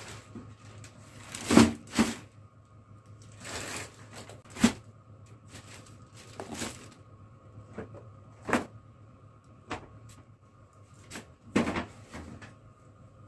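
Irregular knocks and rustles, about a dozen spread over some thirteen seconds, the sharpest about one and a half seconds in, over a steady low hum.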